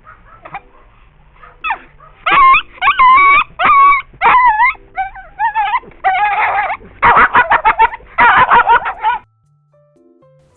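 A puppy whimpering and yipping. High, wavering whines start about two seconds in, then turn into a quicker run of rapid yips that stop about nine seconds in.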